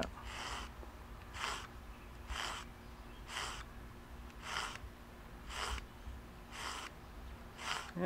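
Spine of a stainless steel steak knife drawn through the V-notch of a red Sharpens Best handheld sharpener, about eight short rasping scrapes, roughly one a second. The sharpener is shaving curls of metal off the knife's square back corner.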